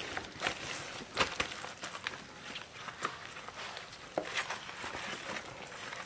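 Rubber-gloved hands rubbing wet red-pepper kimchi seasoning into salted napa cabbage leaves in a stainless steel bowl: irregular wet smacks, squelches and leaf rustles.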